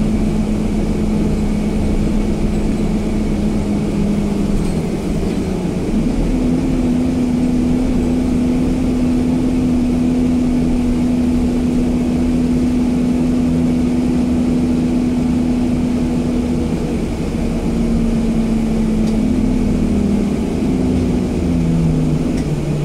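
Alexander Dennis Enviro 200 MMC single-deck bus running on the road, heard from inside the passenger saloon: the diesel engine and drivetrain give a steady drone with a humming tone. The tone steps up in pitch about six seconds in and drops near the end, as engine speed changes.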